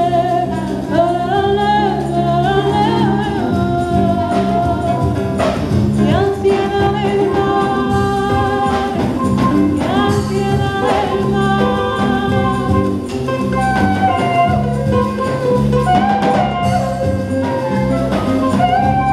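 Live band playing a jazz-inflected song: a woman sings gliding melodic lines over acoustic guitar, electric bass and percussion, with a woodwind playing along.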